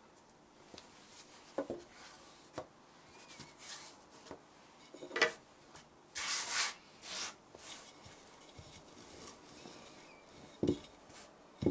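Light knocks and taps of kitchen tools on a floured silicone pastry mat, with a short rubbing swish about halfway through as a rolling pin passes over a strip of puff pastry.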